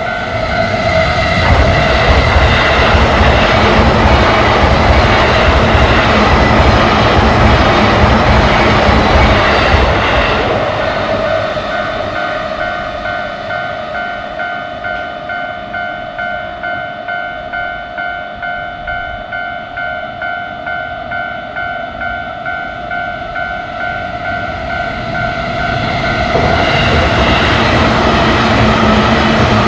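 Japanese railway level-crossing warning bell dinging over and over while an electric train on the JR Keihin-Tohoku Line runs through the crossing. The train's rumble is loudest for the first ten seconds, then eases so the bell stands out, and a train gets loud again near the end.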